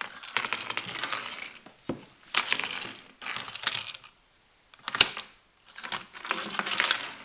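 Small hard objects rattling and clinking in several short bursts, with one sharp knock about five seconds in.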